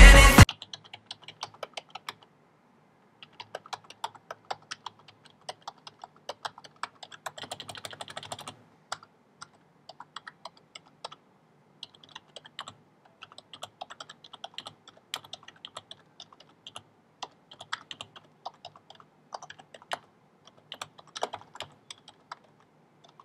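Keys of a Corsair K55 RGB membrane gaming keyboard being pressed in irregular runs of short clicks, with brief pauses between runs. A snatch of background pop music cuts off just at the start.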